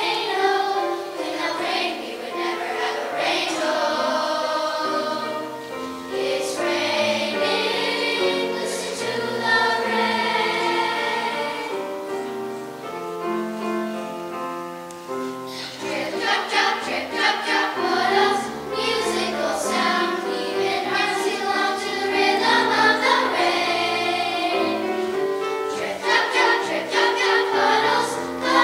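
Children's choir singing, sustained sung notes throughout. It softens for a few seconds about halfway through, then swells to a fuller, louder passage.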